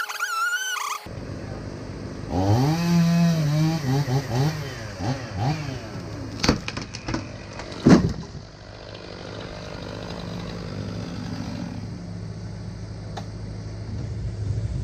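Chainsaw engine revving up and down several times, followed by a run of sharp knocks, the loudest about eight seconds in. After that a low engine hum runs on steadily.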